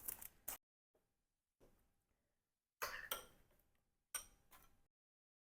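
Near silence broken by a few brief, faint handling sounds, about three and four seconds in, as a yogurt mixture is poured into a small tray.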